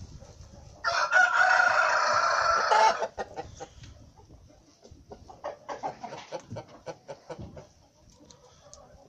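A rooster crowing once, a loud call about two seconds long starting about a second in, followed by quieter scattered clucks.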